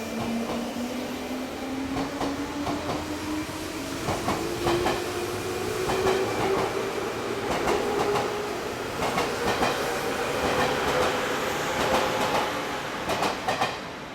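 Electric commuter train accelerating: its traction motors whine in a tone that rises steadily in pitch, while the wheels clack over rail joints in growing numbers.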